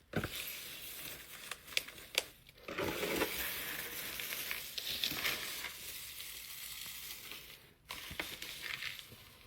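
Paper and plastic packaging rustling and crinkling as a gift box is unwrapped and handled, with a few sharp clicks in the first couple of seconds.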